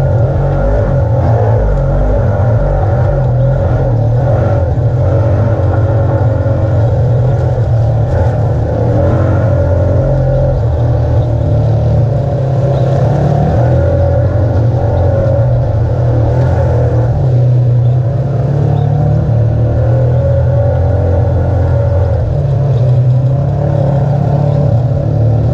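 Side-by-side UTV engine running steadily under load as it drives a rough dirt trail, heard from on board.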